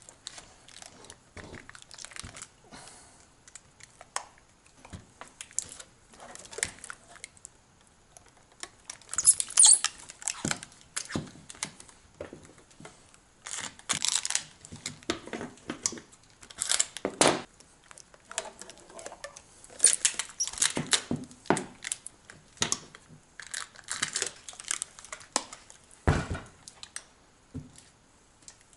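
Amber tape being pulled off its roll in short tearing strips and smoothed around a block of 18650 cells, with crinkling as it is pressed down. There is a single dull thump a couple of seconds before the end.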